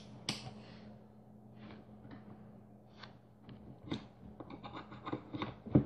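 Clicks and light knocks from handling a digital multimeter and its test leads on a workbench, with a quick run of clicks near the end and the loudest knock just before it ends. A low steady hum runs underneath.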